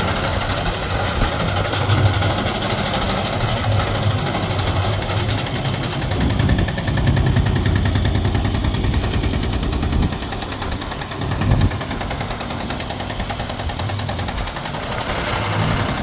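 Small concrete dumper's engine running with a rapid, even pulsing beat as the machine drives and tips its skip, louder for a few seconds in the middle and easing off about ten seconds in.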